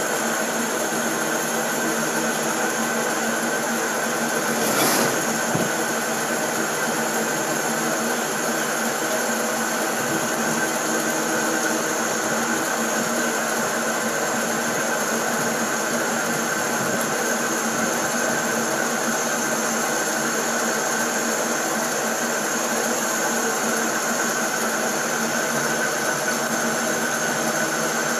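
Metal lathe running steadily while a single-point tool cuts an A-section V-belt groove into a spinning pulley, curling off metal chips. A steady machine hum with constant tones, briefly louder about five seconds in.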